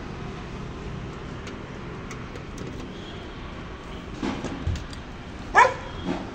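Steady street traffic noise, with one short, loud pitched cry about five and a half seconds in.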